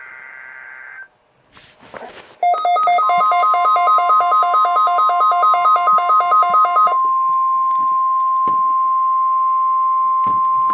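NOAA Weather Radio weekly test alert signals: a warbling SAME data burst ends about a second in, a short crackle follows, then a rapid pulsing beep at about four a second plays until about seven seconds in, over the steady 1050 Hz warning alarm tone, which starts about three seconds in and holds.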